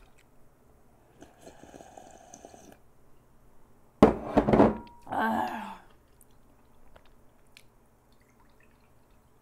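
Soft sipping of ramen broth from a ceramic bowl, then the bowl set down hard on the table with a loud clunk about four seconds in, followed by a short vocal sound.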